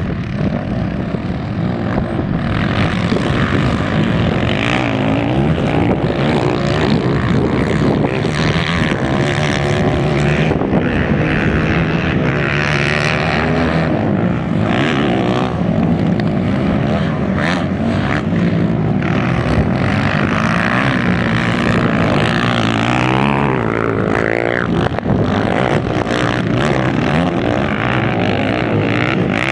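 Motocross dirt bikes racing, several engines revving up and down at once in a steady loud drone. One bike passes close about three-quarters of the way through, its pitch swooping.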